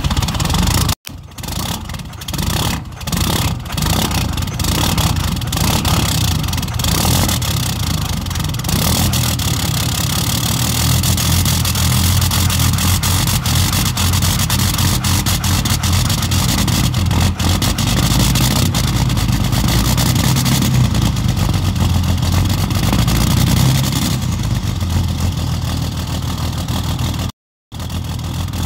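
A Ram pickup's Cummins turbo-diesel cold-starting. It runs unevenly for the first few seconds, then settles into a steady idle. The sound cuts out briefly about a second in and again near the end.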